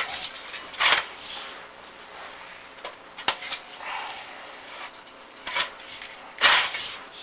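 Chimney inspection camera and its cable scraping and knocking against the flue liner as they are lowered: several irregular rubs and scrapes, with one sharp click a little past three seconds in.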